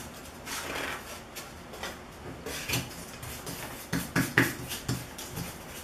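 Stiff stencil brush rubbed and dabbed on a plastic tray to work off excess paint: a series of soft, irregular scratchy strokes with a few light taps.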